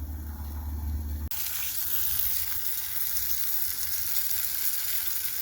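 A steady low rumble cuts off about a second in and gives way to an even, crackling hiss: sausages and potatoes sizzling as they fry in a pan.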